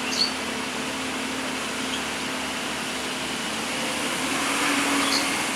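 Hydraulic excavator's diesel engine running steadily, swelling slightly near the end, with two brief high squeaks, one just after the start and one near the end.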